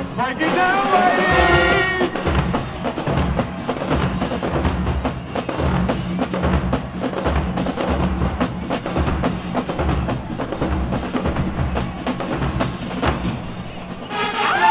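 Marching band drumline playing a fast cadence of rapid drum strokes over bass drums. Sliding brass notes sound in the first two seconds, and the brass comes back in near the end.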